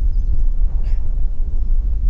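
Wind buffeting the microphone outdoors, a steady low rumble, with a few faint high chirps.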